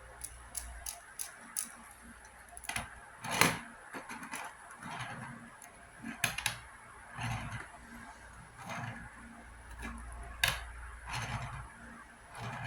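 Hands handling a small fidget spinner: scattered clicks and taps with brief rustles, the sharpest knocks about three and a half seconds in and again near ten and a half seconds.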